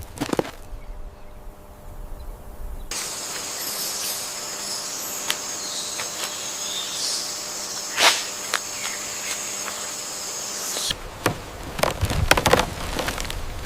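Insects chirring in a steady high chorus that starts about three seconds in and cuts off about eleven seconds in. Scattered footsteps and rustling come at the start and near the end.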